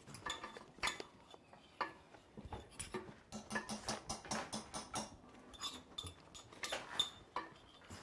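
Metal utensils clinking and knocking against pots and dishes in a series of irregular taps.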